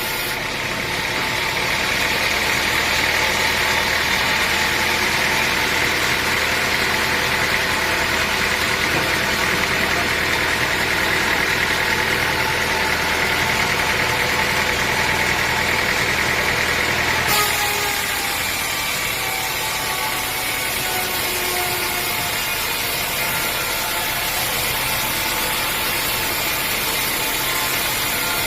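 Sawmill machinery running steadily: an engine-driven saw with a high, even whine. About two thirds of the way through the sound changes abruptly, and afterwards a pitch slowly falls.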